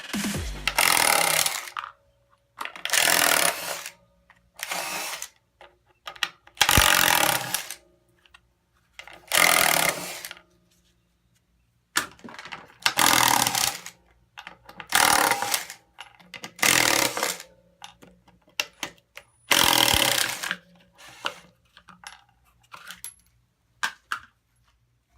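Ridgid R8224 12-volt palm impact driver running in short bursts of about a second each, nine or so, with brief pauses between, then a few shorter taps near the end.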